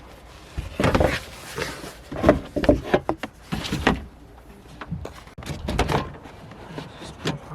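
Car interior trim being refitted by hand: a series of knocks and clicks, with some rustling, as plastic panels and parts are pushed back into place.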